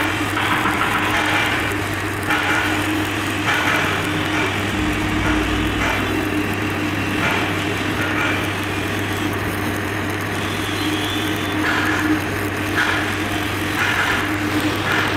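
Stick (SMAW) welding arc on a steel vessel seam, crackling steadily, with brighter surges every second or so, over a steady low hum.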